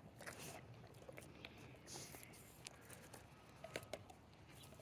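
Near silence, with a few faint scattered clicks and soft rustles.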